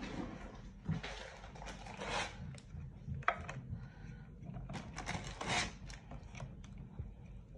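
Lasagna sheets being handled and laid in a metal baking tray: a series of rubbing and scraping swishes, with one sharp click a little past three seconds in.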